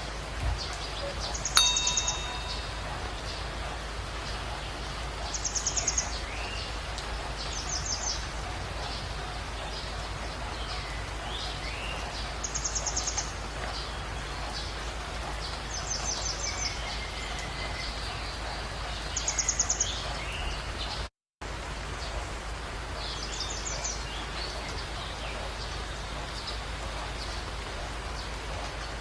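Songbirds calling over a steady outdoor background hiss. One bird repeats a short, high, rapid trill every two to four seconds, and fainter sliding calls sound between. A single click with a brief ringing tone comes about a second and a half in, and the sound drops out for a moment about two-thirds of the way through.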